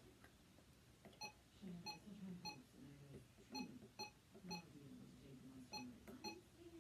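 RadioShack 12-262 weather alert radio beeping with each key press as its setup menu is stepped through: about eight short, quiet, irregularly spaced beeps.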